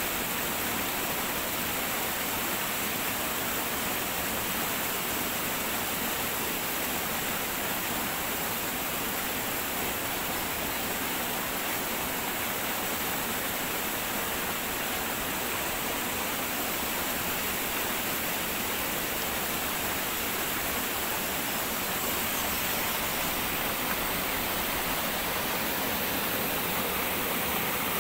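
Forest stream running over rocks: a steady rush of flowing water.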